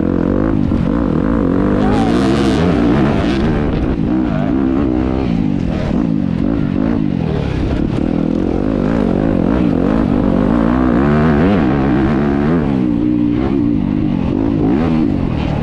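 Off-road dirt bike engines revving up and down continuously as the throttle is worked, their pitch rising and falling without a break.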